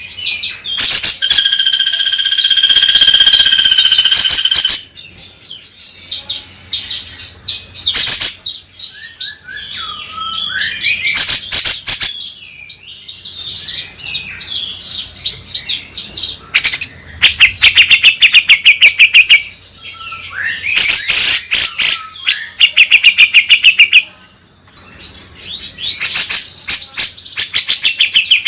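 Cucak jenggot (grey-cheeked bulbul) calling, used as trigger song to get a bird singing. It opens with a long held whistled note, then gives short whistled glides and several runs of fast repeated chattering notes, about ten a second.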